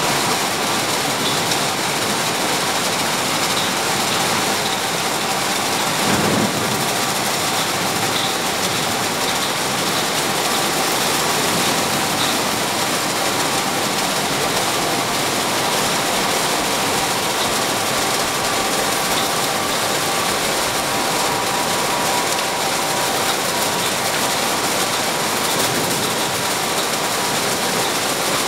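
Automatic car-wash machine running, its rotating brushes swishing with a steady loud whirring noise over a faint motor whine.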